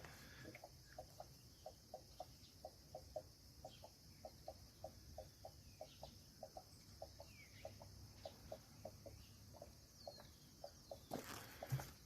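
Chickens clucking faintly in a steady run of short clucks, about three or four a second, with a few faint high bird chirps. There is a brief rustle near the end.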